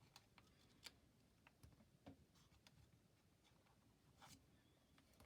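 Near silence with faint, scattered rustles and soft clicks of a small sheet of paper being folded and creased by hand.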